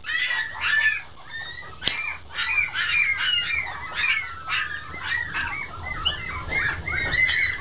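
A litter of very young puppies squeaking, many short high-pitched squeaks overlapping with no pause between them, really loud.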